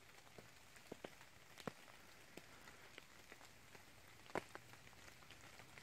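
Faint, scattered raindrops dripping as the rain eases off: sparse irregular ticks over a quiet hiss, with one louder drop about four and a half seconds in.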